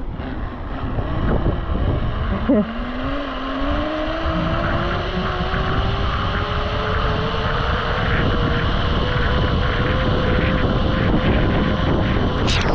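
Zipline trolley running down its steel cable: a whine that rises slowly and steadily in pitch as the ride picks up speed, over rushing wind on the microphone. Just before the end a short loud splash as the rider drops into the water.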